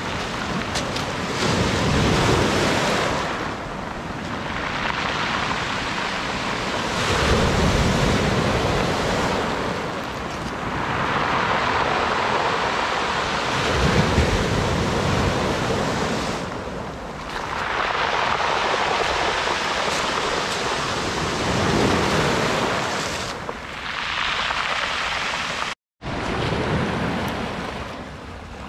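Sea waves breaking on the shore and washing back, a rush of surf that swells and fades every several seconds, cut off for an instant near the end.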